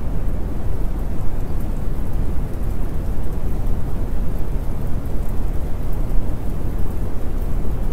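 Steady recorded rain ambience with a deep, even rumble underneath, continuous and without distinct thunderclaps.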